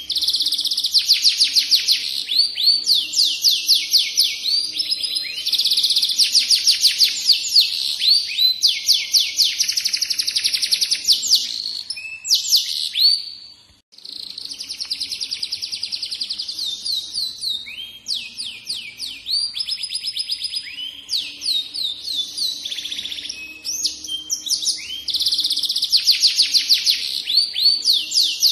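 Domestic canary singing a long, continuous song of rapid high trills and rolling phrases, with a brief break about halfway through.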